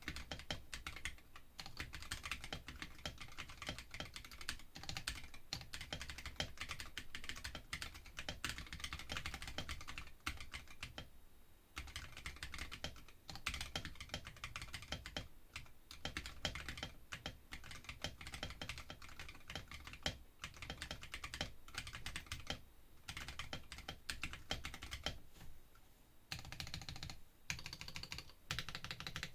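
Continuous typing on a Womier K66 mechanical keyboard fitted with Akko CS Rose Red linear switches: a fast, even patter of keystrokes, broken by brief pauses about a third of the way in and again near the end.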